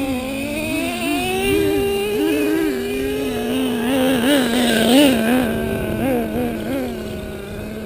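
Small two-stroke engines of radio-controlled off-road trucks running together. One holds a low steady note with many quick throttle blips while another climbs slowly in pitch, loudest about five seconds in.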